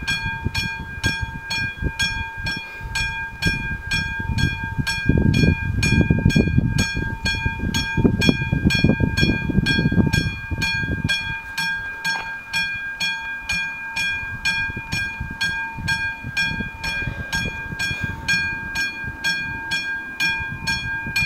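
Level-crossing warning bell of an AŽD 97 crossing signal, a classic striking bell, ringing rapidly at about three strokes a second with each stroke ringing on, the sign that the crossing is activated for an approaching train. A low rumble swells beneath it from about five to ten seconds in.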